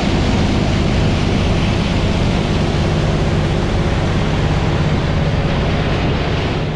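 Peanut-unloading conveyor running, with a stream of peanuts in the shell rattling and hissing as they ride up the belt and pour into a grain trailer. Under it runs a steady low machinery drone.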